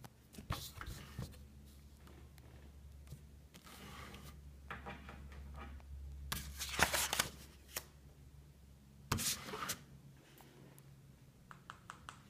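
Pages of a spiral-bound sketchbook being turned and handled: several short paper rustles and flips, the loudest about seven seconds in, with a few light clicks near the end.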